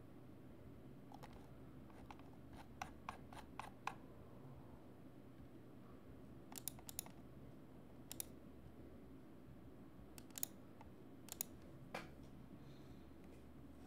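Faint, scattered clicks from working at a computer: a quick run of about five clicks around three seconds in, a few more near seven seconds, and single clicks later on, over a low steady room hum.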